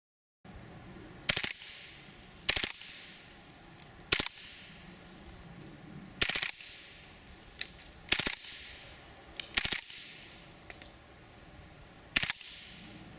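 A vz. 61 Skorpion machine pistol converted to fire .22 LR rimfire on full auto, fired in about seven short bursts of a few rounds each. A couple of single shots come between them.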